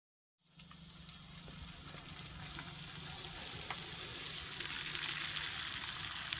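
Small hatchback car driving away on a wet road: a steady hiss of tyres on wet asphalt over a low engine hum, cutting in about half a second in.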